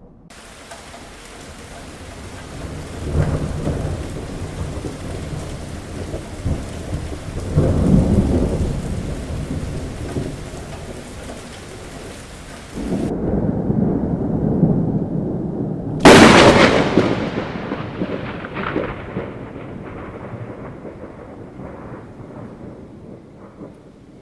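Heavy rain with rolling thunder, deep rumbles swelling a few seconds in and again around eight seconds. Later a sudden sharp thunderclap cracks and rumbles away over several seconds.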